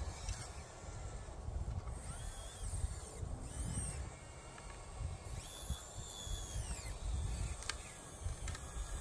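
Small electric drive motors of a radio-controlled excavator whining in short runs, each whine rising, holding and falling in pitch as a movement starts and stops, with a couple of sharp clicks near the end. A low, uneven rumble sits underneath.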